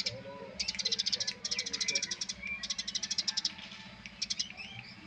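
Eurasian tree sparrows calling energetically in rapid chattering runs of sharp, high chirps, four runs in quick succession with a short pause before the last, over a steady low hum.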